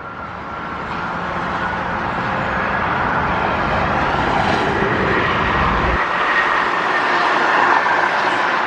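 A steady engine roar that grows gradually louder over the first few seconds and then holds.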